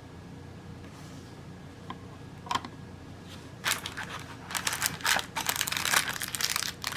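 Hands handling a plastic smart light switch and its packaging: a single click about two and a half seconds in, then a rapid run of plastic clicks and rustling from about halfway through.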